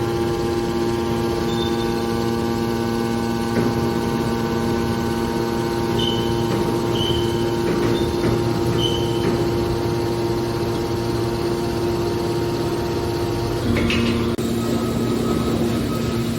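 Hydraulic power unit of a metal scrap compactor baler running with a steady hum, with a few short high squeaks partway through. Near the end there is a brief clatter and the hum changes pitch, as the machine shifts to another stage of its cycle.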